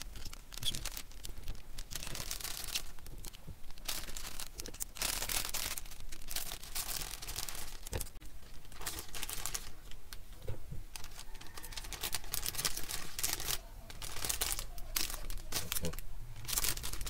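Thin clear plastic packing bag crinkling and rustling in gloved hands in short, irregular rustles as pieces of snail meat are dropped in and the bag is shaped.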